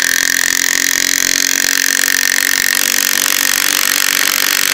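Makita TW007G 40Vmax cordless impact wrench hammering steadily at full speed, driving a 125 mm M12 coach screw down into a wooden block.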